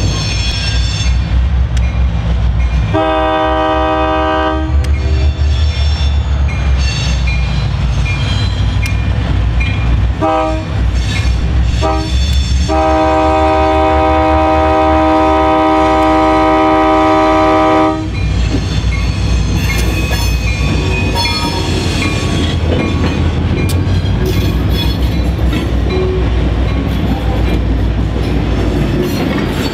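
Air horn of an EMD GP39-2 diesel locomotive sounding for a road grade crossing: a long blast, two short blasts, then a long blast of about five seconds. Under it the locomotives' diesel engines rumble, and in the last third the locomotives pass and freight boxcars roll across the crossing, wheels clacking.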